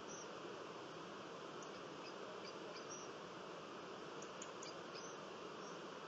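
Faint, steady outdoor hiss of dawn countryside ambience, with scattered brief high-pitched chirps now and then.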